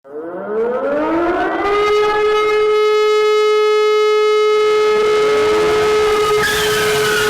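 A siren winds up from a low pitch, rising over about two seconds to a steady held tone with many overtones. Near the end, a hiss and a second, falling tone join it.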